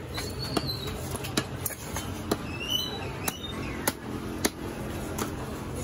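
Heavy fish-cutting knife chopping through a fish onto a wooden log block: about seven sharp knocks a little under a second apart, over a steady low background.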